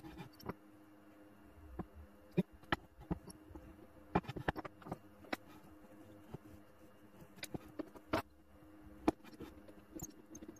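Scattered light clicks and taps of a steel combination square and a scribe being set on and drawn across a wooden block while marking it out, over a faint steady hum.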